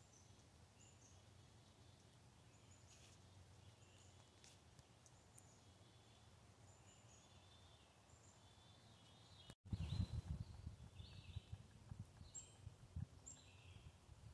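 Faint, scattered chirps of small birds calling over quiet woodland background. About ten seconds in, the sound drops out for a moment, then irregular low rumbling bumps come in under the chirps.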